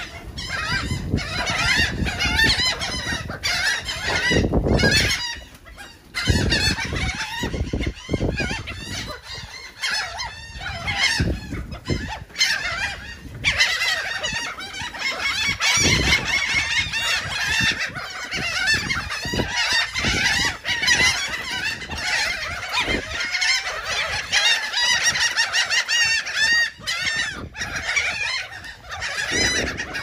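A flock of laughing gulls calling non-stop as they mob food, many short squawking and laughing calls overlapping one another.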